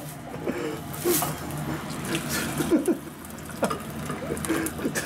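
Cubed tofu and liquid being poured from a frying pan into a pot of water, splashing and sloshing.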